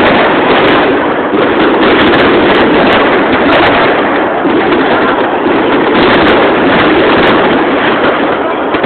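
New Year's fireworks going off overhead, a loud, dense, unbroken crackle and rumble of bursts mixed with crowd voices.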